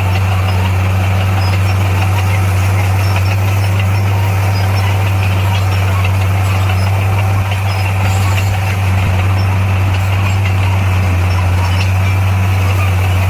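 Heavy earthmoving machine's diesel engine running at a steady speed, a low, even drone with a slight dip in loudness about halfway through.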